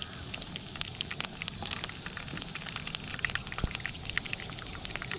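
Curry leaves frying in hot oil in a pan: a steady sizzle with frequent small crackles and pops.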